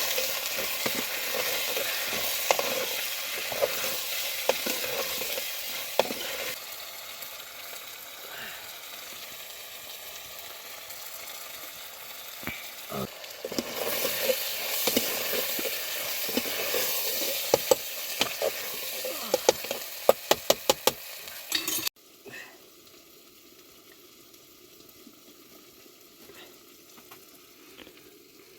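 Food sizzling as it fries in a pan while being stirred, with scattered clicks and a quick run of sharp knocks about three-quarters of the way through. The sizzle then cuts off suddenly to a much fainter level.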